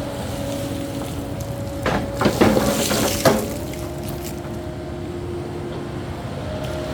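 Cat 308E2 mini excavator's diesel engine running steadily, with a short burst of knocks and a rushing, pouring noise about two seconds in that lasts just over a second.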